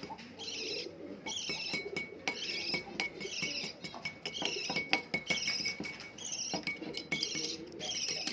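A baby budgie chirping over and over in short high calls, about one or two a second, while something clinks and taps sharply against a small dish as the food paste is stirred.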